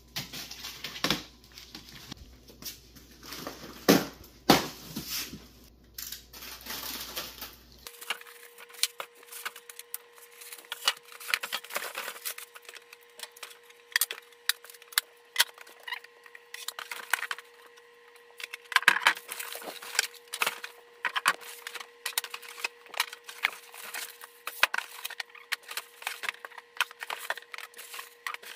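Irregular knocks, clicks and clatters of furniture parts being handled during flat-pack assembly. The background changes abruptly about eight seconds in, and a faint steady hum runs under the knocking after that.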